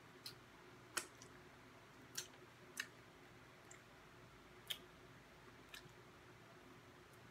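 Quiet eating sounds from chewing and handling sticky, honey-coated fried chicken wings: about eight short, sharp mouth and finger smacks and clicks, scattered irregularly, the loudest about a second in.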